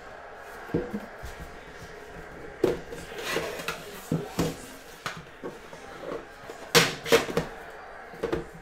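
Hands handling a metal trading-card tin: scattered knocks, taps and scrapes as the lid is lifted off and the orange inner box inside is handled and pulled out. The loudest clicks come near the end.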